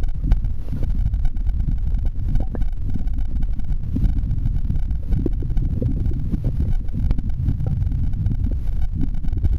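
Low, muffled rumble of flowing river water heard by a submerged camera, with scattered small ticks and clicks.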